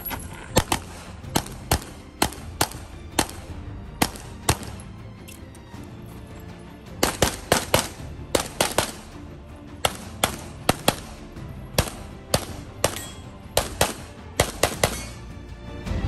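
Rapid 9mm pistol fire from a Canik SFx Rival, shot after shot, mostly in quick pairs and short strings, with a pause of about two seconds midway.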